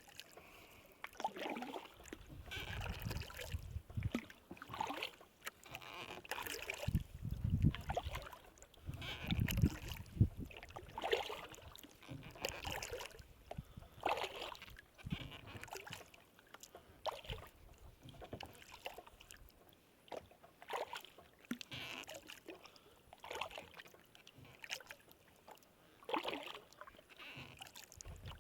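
Kayak paddle strokes dipping and splashing in calm lake water, one about every second and a half, with water lapping at the hull. A low rumble runs under the first ten seconds or so.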